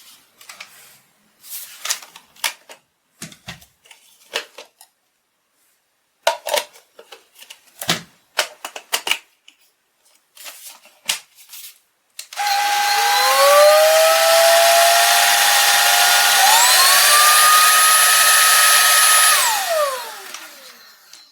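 Scattered clicks and knocks for about twelve seconds, then the Toshiba Torneo VC-CLS11 cordless stick vacuum's motor switches on with a rising whine, steps up to a higher pitch about four seconds later, runs on for a few seconds and winds down as it is switched off.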